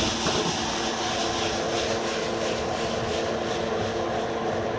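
Pigeon-pea liquid sizzling and hissing in a hot pan, over a steady hum.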